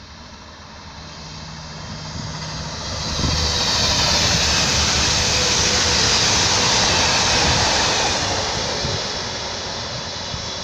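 Regional multiple-unit passenger train passing at speed on an electrified main line. Its rolling noise swells over about three seconds, holds loud with a strong hiss for several seconds, then fades as it draws away.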